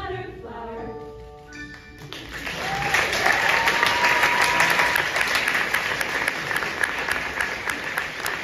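The choir's final chord rings out and fades, then audience applause starts about two seconds in and grows into steady clapping.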